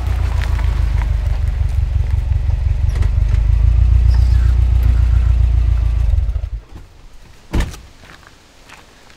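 Subaru Forester XT's turbocharged 2.5-litre flat-four running through an aftermarket turbo-back exhaust with a steady low rumble as the car moves into position, then stopping abruptly about two-thirds of the way through. A single sharp thunk follows about a second later.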